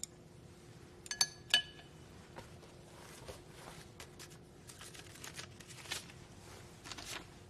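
Chopsticks clink twice against a ceramic bowl about a second in, with a short ring, followed by soft rustling and light ticks as a paper banknote is handled.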